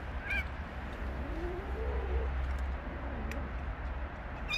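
A low, wavering animal call lasting about a second, followed by a fainter one, over a steady low rumble, with a brief high chirp near the start.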